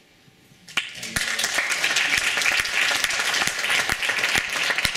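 Audience applauding, the clapping breaking out about a second in and holding steady.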